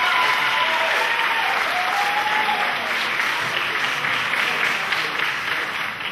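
Audience applauding, with a few voices cheering over the clapping in the first two seconds or so.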